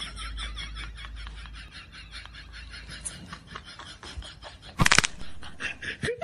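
Faint, stifled laughter in quick repeated breaths, with a short loud outburst about five seconds in.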